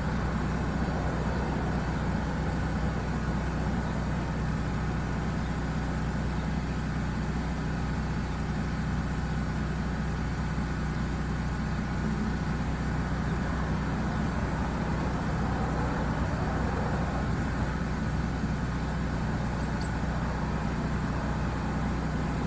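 Pressure washer's gas engine running steadily under a constant hiss, with no let-up.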